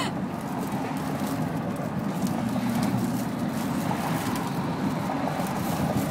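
Steady low rumble, with faint scattered rubbing and handling noises as a latex helium balloon is held against the mouth.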